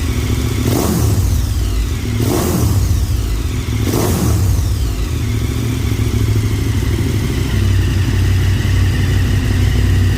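KTM 1290 Super Adventure S's V-twin engine running through an Arrow Sonora titanium exhaust. It is blipped three times in the first four seconds, each rev falling quickly back, then settles to a steady idle.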